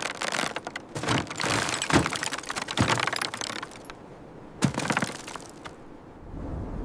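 Dense crackling and snapping in clusters, with a few sharper cracks about two, three and five seconds in, fading out near the end.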